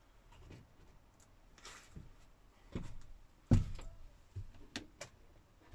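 Scattered knocks and bumps of wooden panels being handled, with one loud thump about three and a half seconds in and a few sharp taps after it, in a small boxy space.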